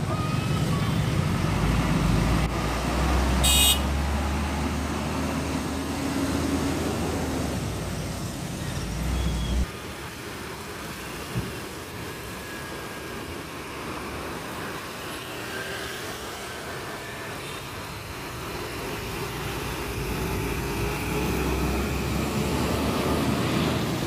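Busy road traffic: trucks and motorbikes running past. A deep engine rumble is loudest in the first ten seconds and stops suddenly, then lighter traffic noise builds again near the end. A brief sharp high sound comes about three and a half seconds in.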